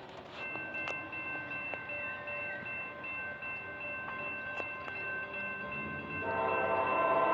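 Amtrak P42DC diesel locomotive's multi-chime air horn sounding one long, steady blast of several notes at once. It grows louder and fuller near the end, with lower notes coming in.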